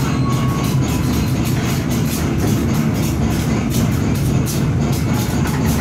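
Train running with a steady low rumble, mixed with background music.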